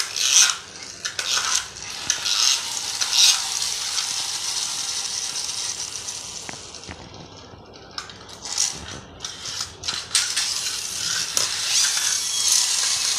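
Small plastic toy cars pushed across a tile floor, a continuous rattling, scraping whir with sharp clicks. It eases off for a moment about midway, then picks up again.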